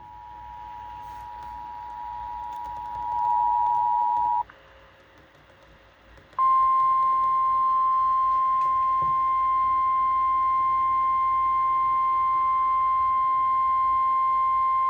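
Emergency Alert System two-tone attention signal over FM radio, growing louder, then cutting off about four seconds in. After a pause of about two seconds, the single steady 1050 Hz NOAA Weather Radio warning alarm tone sounds for about nine seconds. It announces a severe thunderstorm warning.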